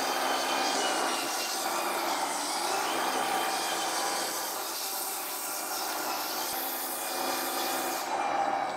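1/12-scale T150K RC tractor pulling a heavy load of about 80 kg in low gear. Its drive motor and gears make a steady mechanical whine, mixed with the rubbing scrape of the towed load dragging across the tile floor.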